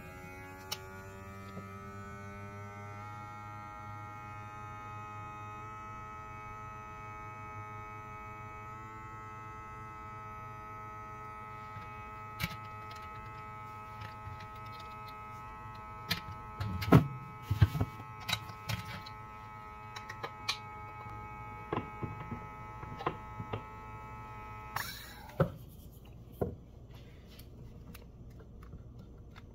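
Small electric mason-jar vacuum sealer's pump motor running with a steady hum, drawing the air out from under the lid to vacuum-seal the jar. Its pitch rises slightly over the first few seconds, then holds. It cuts off about 25 seconds in, with a few light clicks and knocks of handling in the second half.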